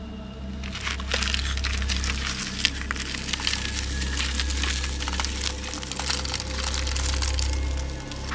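Dense, irregular crackling that starts about a second in and stops shortly before the end, over a low, steady drone of dark film-score music.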